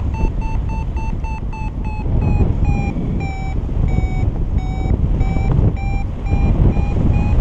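Paragliding variometer beeping its climb tone over steady wind noise on the microphone. The beeps come about four a second and higher-pitched at first, slow to longer, lower beeps about one and a half a second in the middle as the lift weakens, then quicken and rise again near the end as the climb strengthens.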